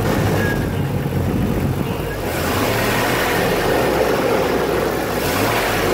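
Jeep TJ engine running with its intake breathing through the stock air box fed from the snorkel. It idles steadily, then about two seconds in it is revved up by hand at the throttle and held there until near the end.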